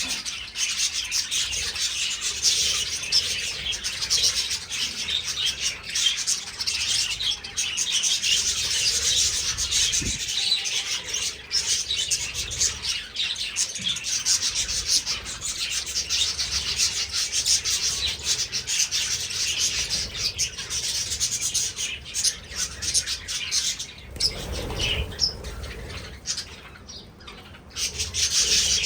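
A flock of budgerigars chirping and chattering continuously in an aviary, with many calls overlapping. The chatter thins out briefly near the end, just after a low rumble, then picks up again.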